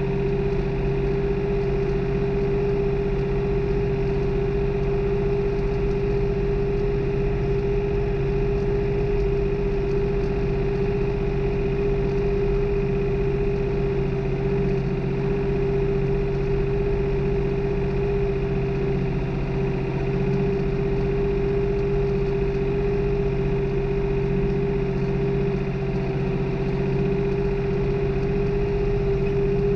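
New Holland farm tractor's diesel engine running steadily while tilling, heard from the operator's seat, with a constant high hum over the engine drone.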